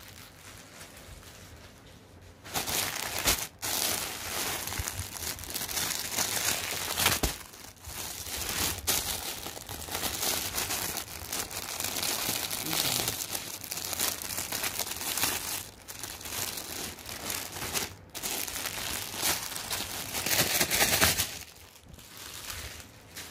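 Clear plastic wrapping crinkling as a packaged fabric piece is handled, in irregular bursts with short breaks, starting about two seconds in and stopping near the end.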